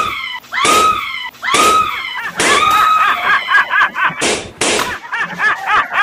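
Balloons popping in a series of sharp bangs, about six in all, most followed by a high scream. From about halfway through, a fast, high repeated cry runs under the bangs.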